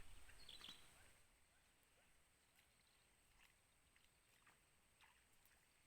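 Near silence: faint outdoor background, with a low rumble that fades in the first second and a few faint ticks.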